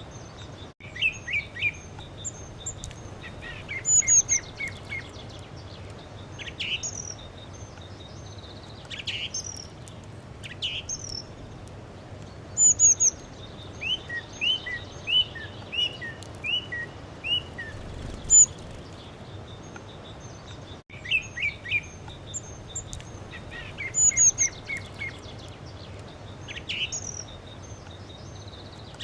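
Several birds chirping and calling: short quick notes, little runs of chirps and high whistles every second or two, over a steady background hiss.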